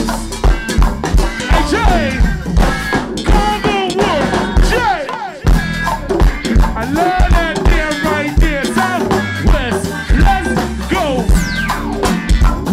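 Live band playing: a drum kit and bass keep a steady beat with heavy low thumps, while a melody line slides up and down in pitch over them. The low end drops out briefly about five seconds in.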